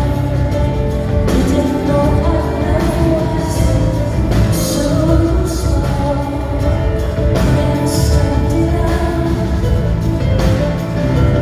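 Live rock concert music: a female singer over a band with a heavy, steady bass line and occasional cymbal crashes.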